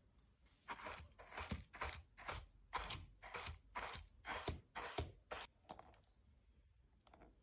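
Wooden-backed shoe brush swept over leather loafers: a dozen or so quick scratchy brushing strokes, about two or three a second, that stop about six seconds in.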